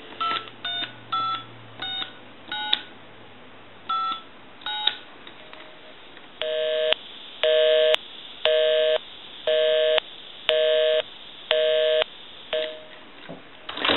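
Touch-tone (DTMF) dialing on an M&M's animated novelty telephone: seven short two-tone beeps as a number is keyed in, followed by a telephone busy signal beeping on and off about once a second. The phone dialing out this way shows its dial-out fault is repaired.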